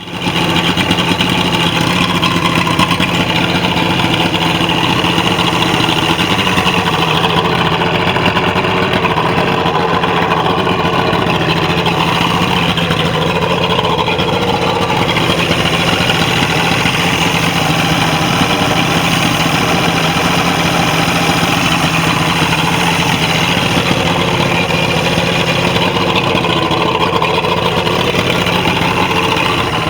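Mercury 150 hp outboard motor running steadily at a constant speed.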